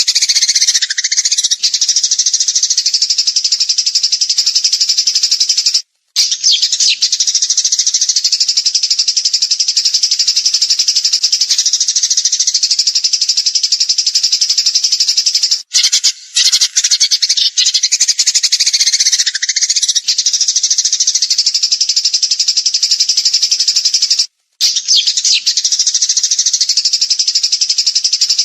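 Songbird singing a dense, continuous, high-pitched rapid trill, the rapid-fire 'tembakan' style of song. The song cuts out briefly three times.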